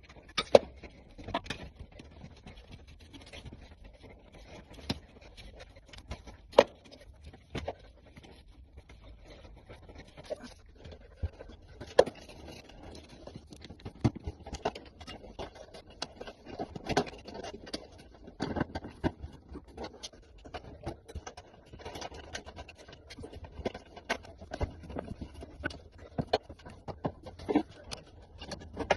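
Irregular clicks, knocks and scraping of hand work on the furnace, as parts and tools are handled during the heating-element replacement, with a few sharper knocks standing out.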